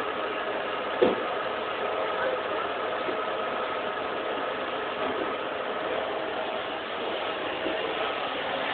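Vacuum cleaner running steadily, a constant motor noise with a steady tone in it, and a single short knock about a second in.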